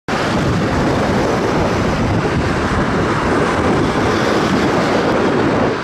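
Airbus A320 airliner on short final for landing: a steady rushing jet noise, mixed with wind buffeting the microphone.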